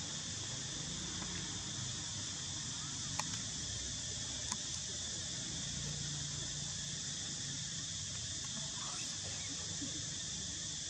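Steady, high-pitched drone of an insect chorus, with two faint sharp clicks about three and four and a half seconds in.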